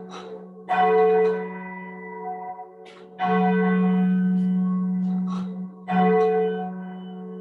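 A church bell tolling slowly: three strokes about two and a half seconds apart, each ringing on and fading before the next.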